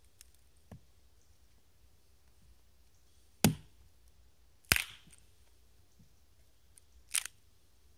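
Small axe knocking into a short section of damp timber to split it down the middle: three sharp wooden knocks, after a faint one near the start.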